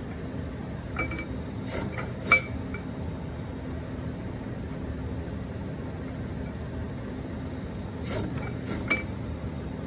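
CNC paint-pen plotter running with a steady motor hum. Two groups of sharp clicks come through it, one about a second in with the loudest just past two seconds, and another near the end.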